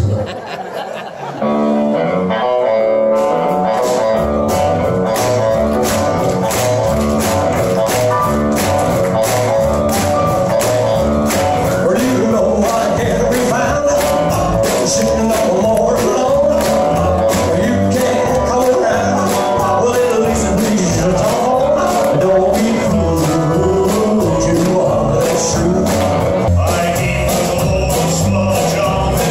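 Live rock and roll band playing, heard from the audience: electric and acoustic guitars, upright bass and drums keeping a steady beat, with a man singing. The music comes in fully about a second and a half in.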